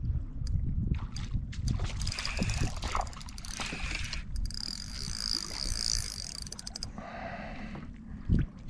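Water sloshing around a fishing kayak, with scattered small knocks and clicks over a low rumble. A high hiss comes in a little after the middle and lasts a couple of seconds.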